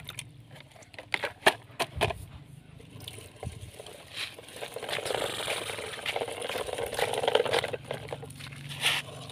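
Plastic toy dump truck pushed by hand over gritty dirt, its wheels crunching and scraping along. This follows a run of sharp plastic clicks and knocks in the first two seconds.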